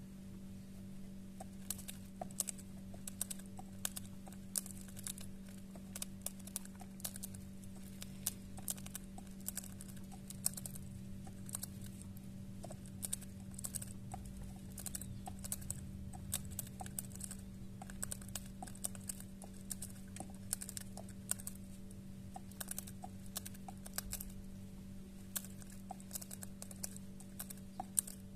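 A pet bird eating: a steady run of small, irregular beak clicks and crunches, several a second.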